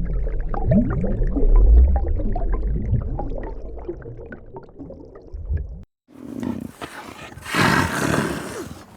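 Tiger growling and roaring, in two separate clips with a brief break about six seconds in. The first is a low rumbling growl; the second is rougher and louder near the end.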